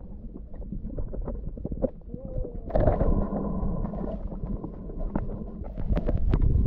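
Muffled underwater sound from a camera held under the sea: a constant low rumble with scattered clicks and crackles, a brief squeaky tone about two seconds in, and a louder rush of water noise from about three seconds in.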